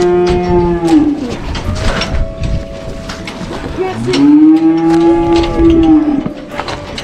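Cattle mooing: one long call that ends about a second in, and a second, louder long moo from about four to six seconds in that rises slightly and then falls away. Scattered knocks in between.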